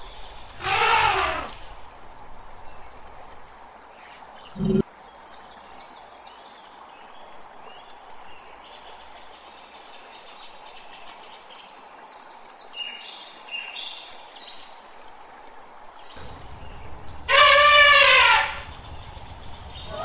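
Elephant trumpeting: two loud, brassy calls about a second long, one about half a second in and a louder one near the end. Between them a brief low thump about four and a half seconds in, with faint chirping.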